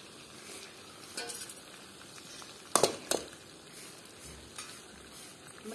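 Meat sizzling as it fries in a metal pan, with a ladle stirring it. Two sharp metallic clinks come about halfway through.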